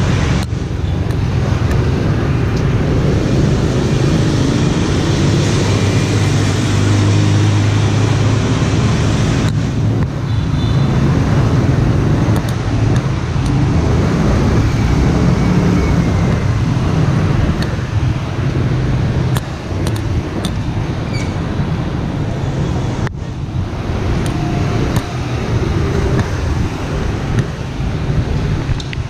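Busy street traffic made up mostly of motorbikes and scooters: a steady, loud drone of small engines as they pass close by, with a car now and then.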